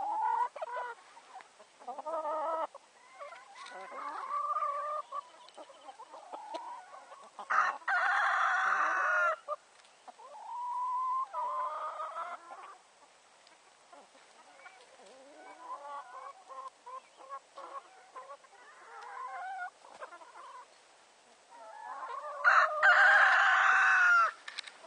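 Brown laying hens clucking among themselves. Two loud, drawn-out calls of about two seconds each come about eight seconds in and again shortly before the end.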